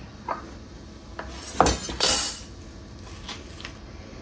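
Kitchen utensils clinking and knocking: a metal spoon and a small ceramic dish handled on a wooden cutting board. There are a few light clicks, two loud sharp clinks about two seconds in, then a couple of lighter clicks near the end.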